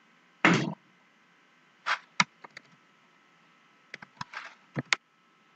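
Scattered keystrokes on a computer keyboard, a few at a time with short pauses, with one louder, longer noisy burst about half a second in.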